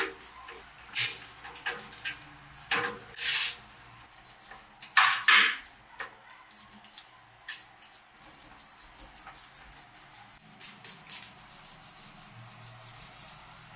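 Honda Cub 70 transmission gear clusters being cleaned by hand: a spray bottle squirts cleaner onto them at the start, then a small tool scrapes and scrubs the greasy metal gears in short strokes, about three or four a second in the second half.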